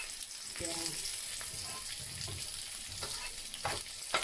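Sliced chorizo sizzling steadily in hot olive oil in a non-stick frying pan. A slotted spatula knocks against the pan a couple of times near the end.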